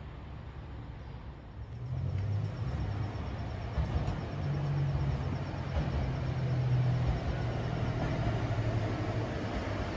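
Diesel engine of an Echigo TOKImeki ET122 series railcar running as the train draws into the platform. It is a steady low hum that comes in about two seconds in and grows a little louder.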